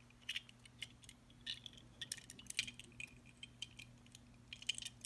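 Small die-cast metal toy cars clicking and tapping lightly against each other and the fingers as they are handled, an irregular scatter of soft clicks. A faint steady low hum runs underneath.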